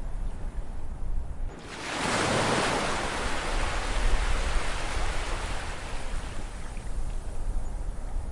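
Ocean surf. A wave breaks about two seconds in with a sudden rushing wash, then slowly fades as it draws back, over a steady low rumble of the sea.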